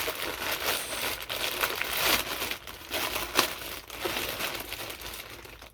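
Shipping package being torn open and its wrapping crinkled by hand, with sharp crackles among the rustling, dying down near the end.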